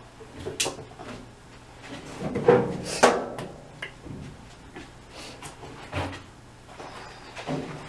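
Clothes being loaded into a clothes dryer: a handful of irregular knocks, clunks and rustles, with a faint steady low hum underneath.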